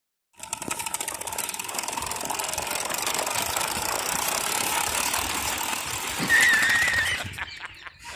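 Small electric motor and plastic gears of a toy tractor whirring and rattling steadily as it drives on concrete. A brief high wavering tone comes in about six seconds in, and the whirring fades out near the end.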